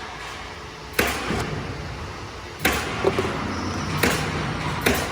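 Large nails being driven into a framed wall with insulated sheathing: four sharp strikes about a second or so apart, irregularly spaced.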